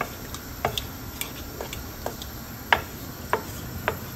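Chicken curry simmering in a metal pot and being stirred with a spoon: irregular soft clicks and pops, two or three a second, over a low hiss.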